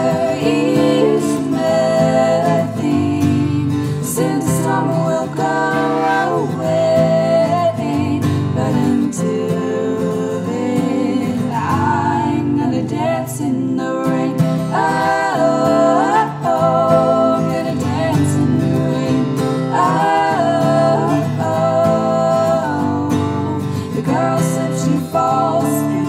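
Acoustic guitar strummed steadily under a woman's voice singing long, held notes in layered vocal harmonies.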